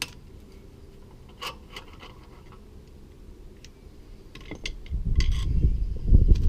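Light clicks and taps of small metal tools and parts being handled on a bicycle. From about five seconds in, a loud low rumble builds and drowns them.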